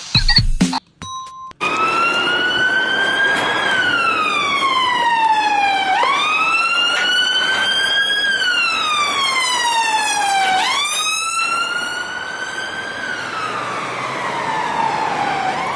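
A wailing siren: from about a second and a half in, a tone climbs a little, slides slowly down over a couple of seconds, then snaps back up, going round about three times. A short steady beep sounds just before it starts.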